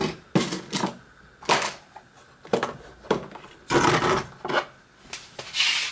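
Small metal hand tools clinking and clattering as they are rummaged through and picked out: a string of sharp taps and short rattles.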